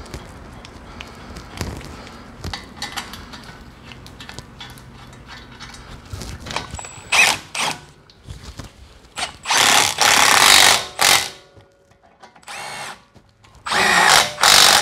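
Cordless power tool spinning the 14 mm brake caliper bolts into a Honda CR-V's front caliper in short runs, after some light clicking of the socket and bolts being handled. It runs four times in the second half, the longest run about two seconds.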